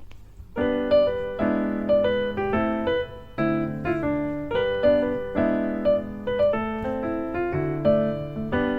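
Piano music: a gentle melody of struck notes over held chords, starting about half a second in.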